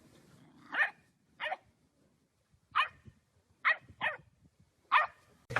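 A dog barking: six short barks with irregular gaps between them.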